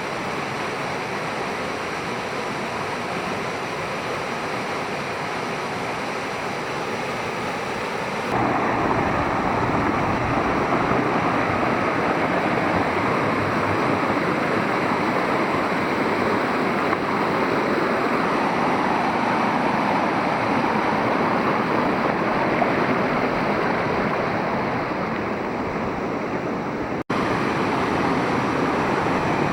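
Rushing water of a mountain stream and waterfall, a steady unbroken rush. It becomes louder and fuller about eight seconds in, and cuts out for an instant near the end.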